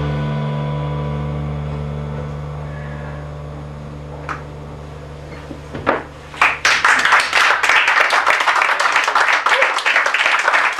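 The last chord of a jazz piano trio, piano and upright bass, rings out and slowly fades for about six seconds. Then a small audience breaks into applause, which runs on to the end.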